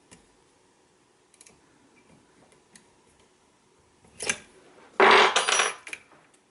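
Faint clicks of small metal hand tools, a short knock about four seconds in, then a louder metallic clatter lasting about a second near the end.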